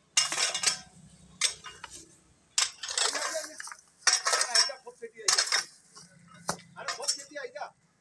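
Metal rake tines scraping and clinking against loose stones as the rake is dragged and pried through a rock pile, with rocks knocking together. The sound comes in about eight separate bursts, each starting with a sharp, ringing clink.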